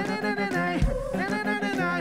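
A live band playing: a melodic line that slides up and down in pitch over a deep bass note, struck anew about once a second.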